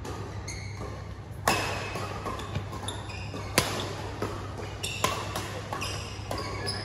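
Badminton rally: rackets smacking the shuttlecock in a few sharp hits about two seconds apart, with short squeaks of shoes on the court between them.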